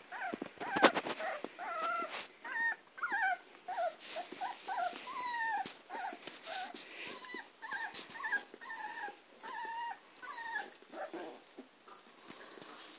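Greater Swiss Mountain Dog puppies whining and yipping in play: a quick string of short, high-pitched calls, about two a second, from about two seconds in until near the end. There are a few sharp knocks about a second in.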